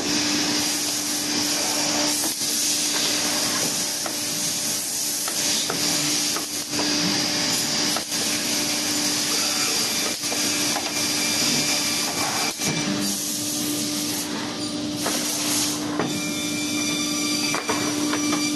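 CNC six-sided panel drilling machine running: a steady motor hum and hiss, broken by scattered short clicks.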